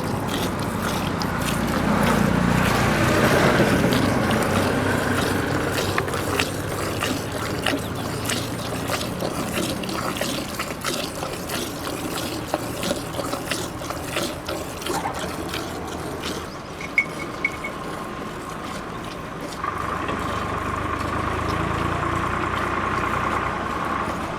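Buffalo being milked: streams of milk squirting into a pail in quick, repeated spurts.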